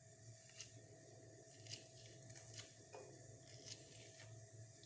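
Faint, wet squelching and scraping as the pulp and core of a green lime are cut and scooped out, with a few soft clicks scattered through, over a low steady hum.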